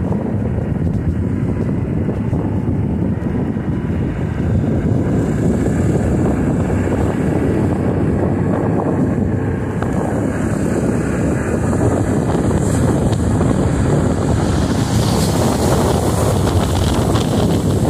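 Wind rushing over the microphone of a moving motorcycle, mixed with the bike's engine and road noise. Steady throughout, getting slightly louder about four seconds in.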